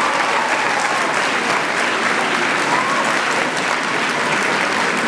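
An audience applauding steadily, with a few voices faintly under the clapping.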